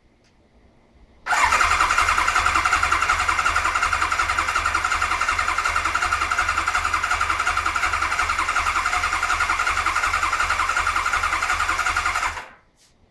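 1992 Kawasaki KZ1000P's electric starter cranking its air-cooled inline-four engine in an even, rhythmic chug for about eleven seconds. It starts suddenly and stops abruptly without the engine catching: a no-start on the first attempt after a rebuild.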